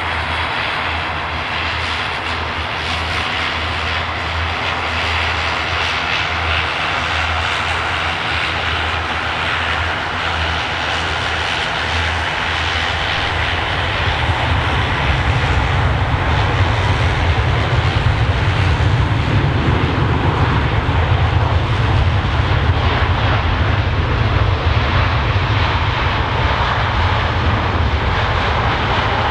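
Airbus A380's four jet engines during a landing: a steady jet roar on approach. It grows louder, with a deep rumble coming in about halfway through as the airliner rolls out along the runway.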